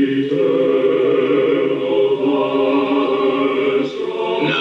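Choir singing slow, held chords as part of the film's music score.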